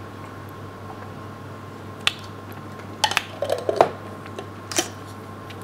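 A metal spoon clinking and scraping while runny peanut butter is spooned out of a jar. There is a single clink about two seconds in, a cluster of clinks and scrapes a second later, and one more clink near the end.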